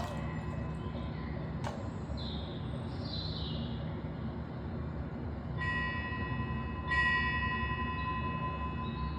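A metal bell or chime struck twice, about a second and a half apart, each strike ringing on with several clear tones, the second louder. Under it runs a steady low rumble of ambient noise.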